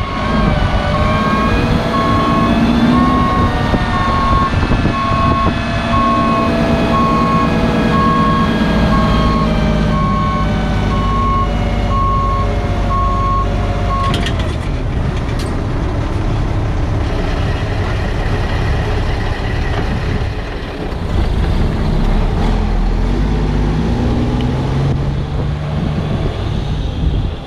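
Mack AMI 335 diesel engine running at raised revs while the Galbreath hydraulic roll-off hoist lowers, with a warning alarm beeping about once a second. About halfway through the beeping stops and the engine settles to a lower, rougher run as the truck pulls away.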